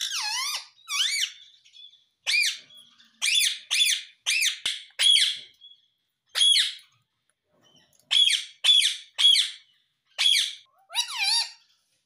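Indian ringneck parakeet calling: a series of about a dozen short, shrill squawks in clusters, with a brief pause a little past the middle.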